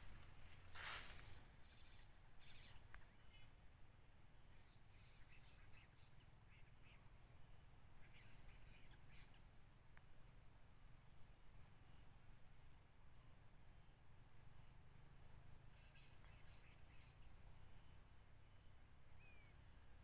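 Faint, steady high-pitched insect trilling of a field at dusk, with a few short chirps over it and a low rumble beneath; a couple of soft knocks in the first second.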